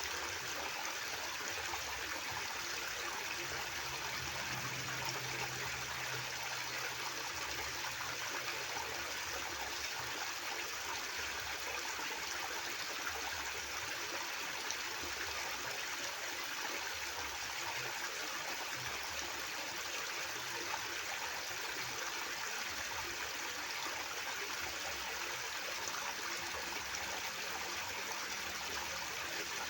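River water flowing steadily, a continuous even rush with no pauses.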